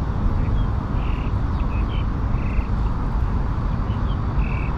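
Frogs calling in short, high chirps, about a dozen at irregular intervals, over a steady low rumble.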